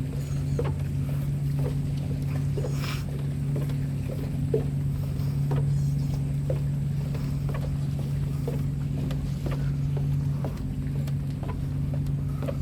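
Steady low motor hum, with light knocks scattered through it at roughly two a second and a brief high squeak about three seconds in.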